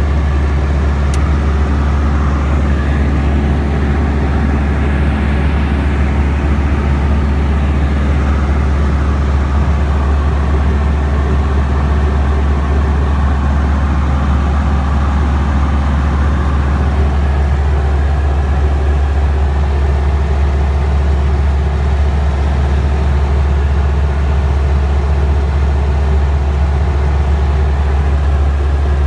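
Tecnam Sierra light aircraft's Rotax 912 four-cylinder engine and propeller running steadily at power, with a strong low drone.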